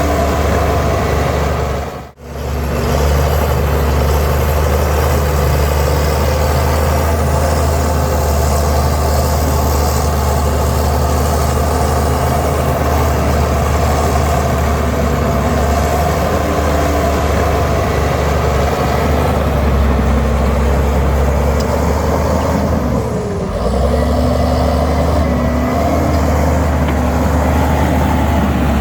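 Heavy diesel engine of earthmoving machinery running steadily, with a deep, constant engine note. The sound cuts out briefly about two seconds in, and the engine note dips for a moment late on.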